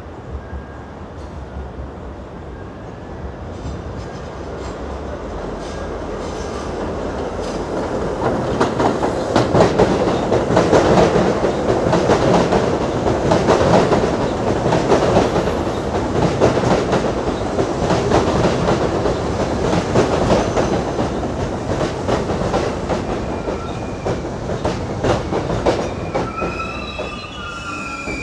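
New York City subway train passing, growing louder over the first ten seconds, its wheels clacking rapidly over rail joints with a steady rumble. Near the end the wheel flanges begin to squeal.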